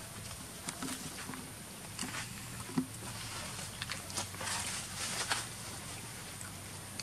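Scattered light rustles and short clicks, thickest a little past the middle, over a steady faint high drone and a low hum.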